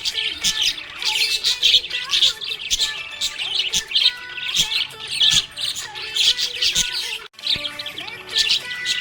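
Budgies chirping and warbling in a busy, continuous stream of quick high chirps, with a brief break about seven seconds in.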